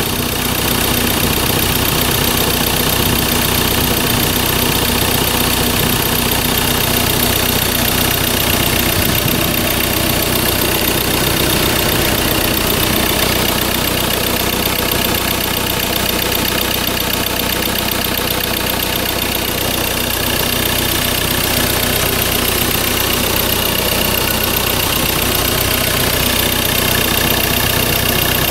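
2014 Ford Ranger's 2.2-litre four-cylinder turbodiesel idling steadily, heard close up with the bonnet open.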